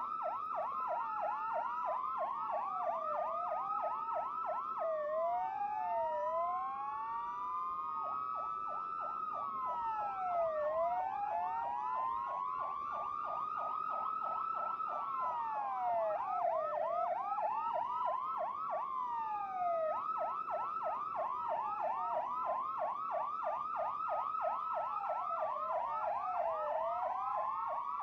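Several police sirens sounding together: slow wails that rise and fall every few seconds overlap fast yelps sweeping up and down several times a second.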